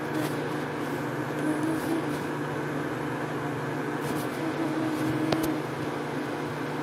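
Steady low hum and hiss of background noise, with a faint wavering tone and a single sharp click a little over five seconds in.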